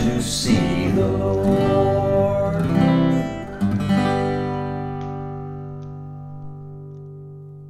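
A song ends on acoustic guitar, with a voice finishing the last sung line. A final strummed chord lands about four seconds in and rings out, fading slowly.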